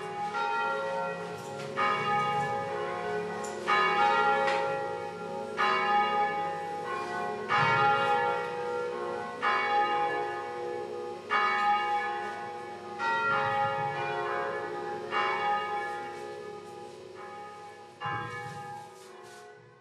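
Bells ringing, a new stroke about every two seconds, each tone ringing on into the next, fading out near the end.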